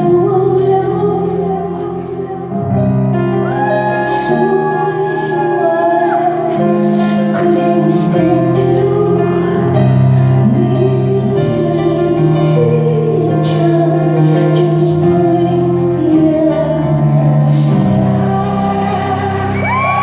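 Live concert music: a woman singing over sustained low chords that change every second or two, with a long held high note a few seconds in.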